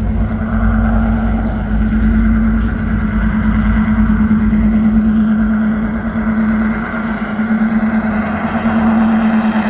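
An engine running steadily: a constant droning hum with a low rumble beneath it, swelling slightly about halfway through and again near the end.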